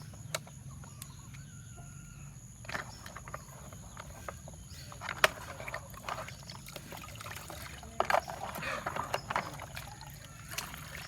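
Water splashing and small toys knocking together in scattered short bursts, the busiest stretch coming after about eight seconds, over a steady low hum.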